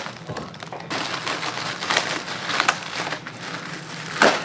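Plastic wrapping crinkling and crackling as a box's packaging is handled and opened, in a steady run of small crackles.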